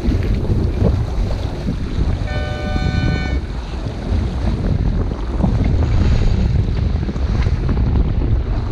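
Wind buffeting the microphone and water rushing along the hull of a J/109 racing sailboat under sail in a chop, a loud steady rumble. About two seconds in, a short steady tone sounds once for about a second.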